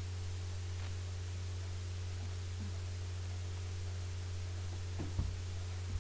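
Steady electrical hum and constant hiss from a poor-quality microphone, with one soft thump about five seconds in.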